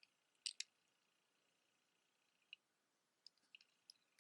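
Near silence with faint clicks of costume jewelry being handled: two light clicks about half a second in, then a few scattered ticks.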